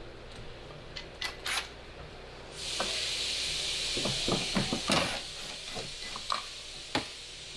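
Removing a screw from the trunk trim: scattered sharp clicks and knocks of a tool and plastic trim, with a steady hiss that starts a little over two seconds in and lasts about two and a half seconds.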